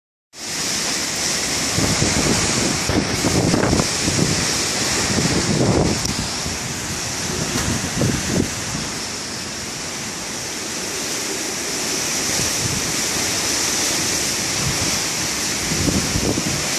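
Strong wind rushing steadily, with irregular gusts buffeting the microphone as low rumbles, most in the first half and again near the end.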